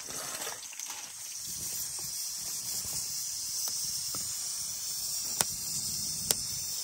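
Wood fire crackling in an open hearth under a pressure cooker, with a couple of sharp pops about five and six seconds in, over a steady high hiss.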